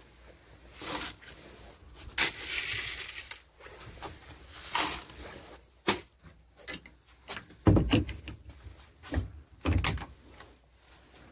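Irregular knocks, clicks and rustling from handling a wooden rabbit hutch with a wire-mesh door and bedding hay, with two heavier thumps about eight and ten seconds in.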